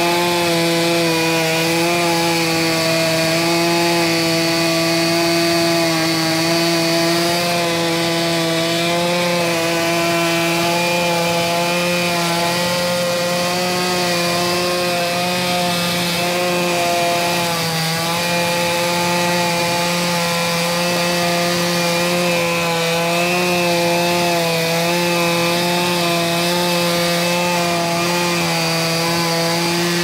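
Chainsaw on a Logosol F2 chainsaw mill running under load, ripping lengthwise through a log: a loud, steady drone, its pitch dipping slightly now and then.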